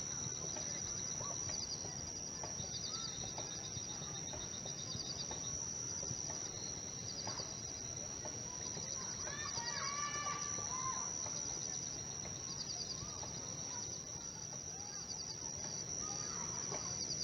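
Nature ambience of insects: a steady high-pitched drone with repeated short pulsing trills. Bird chirps come in briefly about ten seconds in.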